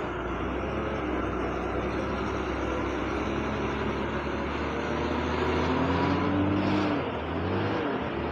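Diesel engine of a loaded multi-axle Tata lorry pulling slowly past. Its note climbs under throttle, then falls back about seven seconds in.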